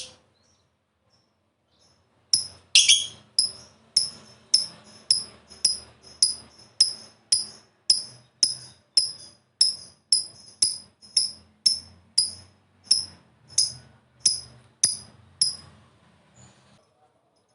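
Lovebird giving a long series of short, sharp high chirps, about two a second, starting a couple of seconds in and stopping shortly before the end.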